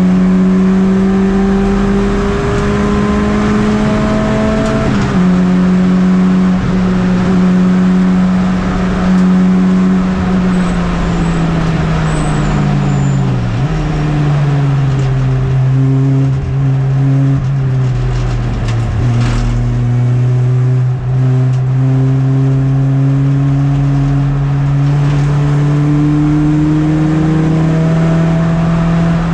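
Racing MINI's engine heard from inside the cabin, running hard the whole time. Its pitch steps about five seconds in, then falls over a few seconds around the middle as the car slows, and climbs slowly again through the rest.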